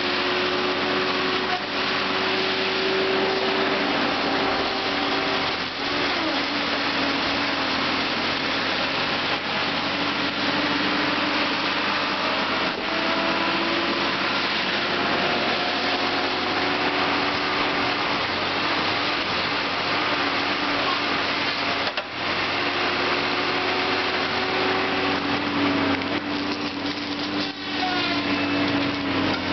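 Tracked Timbco feller buncher working: its diesel engine, hydraulics and spinning disc saw head make a loud, steady machine noise whose pitch shifts slightly now and then under changing load.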